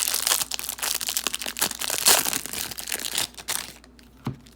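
Plastic wrapping of a 2018 Prestige football card hanger pack crinkling as it is torn open and handled. The dense crackling dies down about three seconds in, leaving a few soft clicks.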